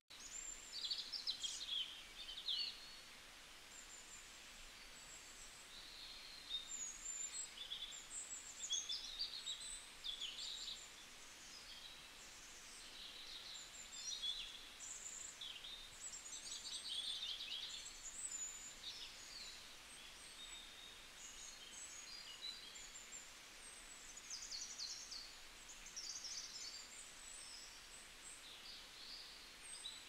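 Small birds chirping and twittering, many short high calls and quick trills overlapping, over a faint steady outdoor hiss.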